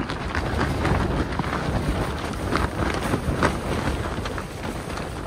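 Strong wind buffeting the microphone: a steady low rumble with scattered crackles.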